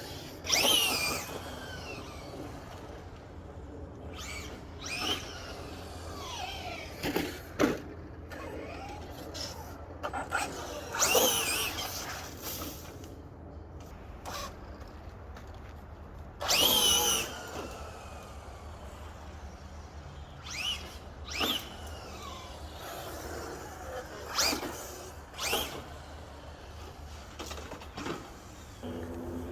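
Traxxas Drag Slash RC truck's Velineon brushless electric motor whining through about a dozen short throttle bursts, its pitch sweeping up and then falling off each time. One longer pull comes a little past the middle.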